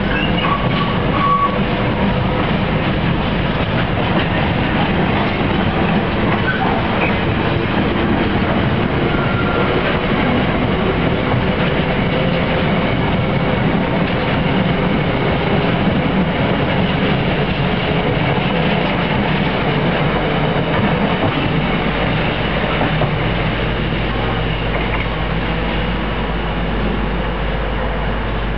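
Container wagons of a long intermodal freight train rolling past at a steady speed, their wheels running on the rails with a loud, continuous rumble that eases a little near the end as the last wagons go by.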